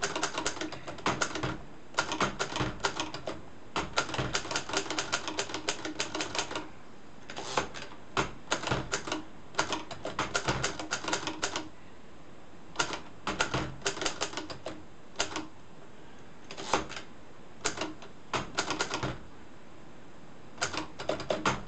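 A 1942 Hermes Media manual typewriter being typed on: the sharp clacks of its typebars striking the platen come in quick runs of several keystrokes a second, broken by short pauses.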